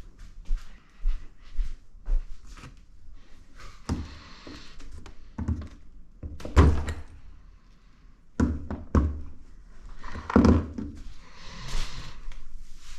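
Metal engine parts and hand tools knocking and clunking as a new cam chain tensioner is worked on a Honda TRX400EX engine, with several separate heavy thunks and some scraping between them. The tensioner is stuck and will not release.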